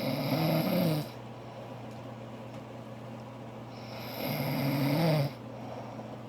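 A woman snoring in her sleep: two loud snores a little over four seconds apart, each drawn-in breath hissing and rasping for about a second.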